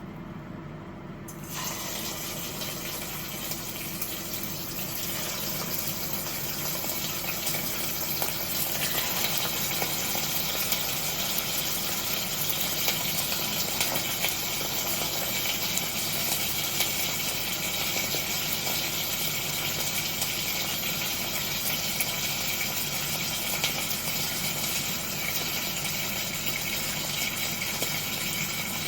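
Water running steadily from a kitchen tap, turned on about a second and a half in, over a low steady hum.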